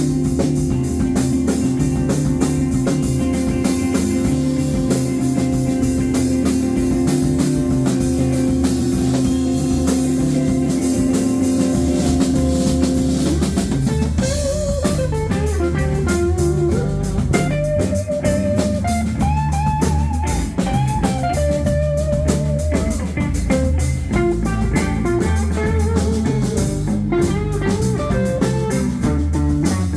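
Live blues-rock band playing an instrumental passage: drum kit and bass under held guitar chords, then from about halfway a lead guitar solo with bent, sliding notes.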